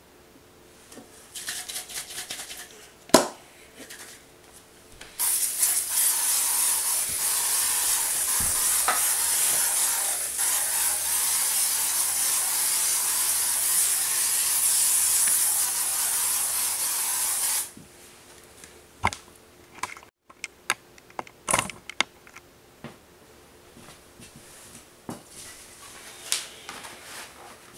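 Aerosol can of FootLocker silicone boot protector spraying onto ripstop fabric in one long, steady hiss of about twelve seconds. A sharp knock comes about three seconds in, and a few clicks and knocks follow after the spray stops.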